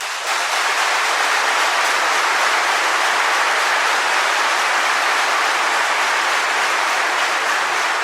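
Large audience clapping together in dense, steady applause that starts abruptly and holds at an even level.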